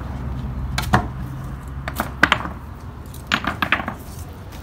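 Wooden board being handled and set against a wooden fence: a few sharp wooden knocks, one about a second in and small clusters around two and three and a half seconds in. A low steady hum underneath stops about two seconds in.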